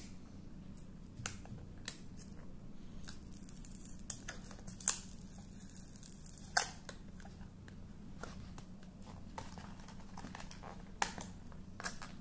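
Fingers working open the flap of a small cardboard box: scattered scratching and rubbing of card, with a few sharp clicks, the loudest two around the middle.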